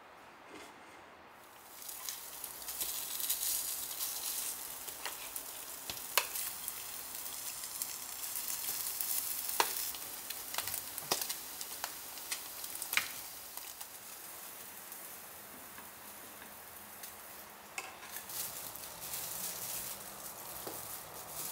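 Slices of Spam frying in a shallow square pan: a sizzle that starts about two seconds in and runs on, with scattered sharp spitting pops.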